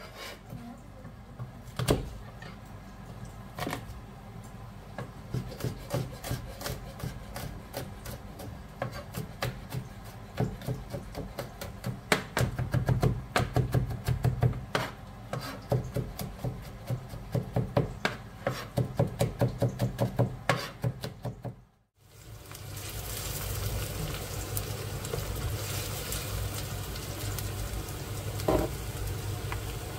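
Chef's knife chopping onion and garlic on a plastic cutting board: scattered knife strikes, then fast regular chopping of a few strokes a second. About two-thirds of the way through, the chopping stops abruptly and a steady hiss takes over.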